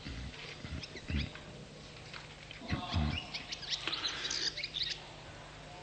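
A pause in a live mosque recitation recording: faint scattered voices and stirrings of the listeners over a steady low hum, with short high chirps in the middle of the pause.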